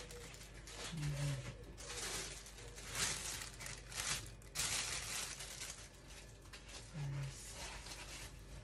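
Thin clear plastic food bag crinkling and rustling in short, irregular bursts as it is handled.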